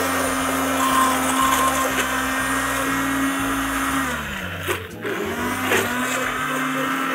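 Hand-held immersion blender running steadily as it purées a pepper sauce in a tall plastic beaker. About four and a half seconds in its motor note falls away and almost stops, then spins back up to full speed a second later.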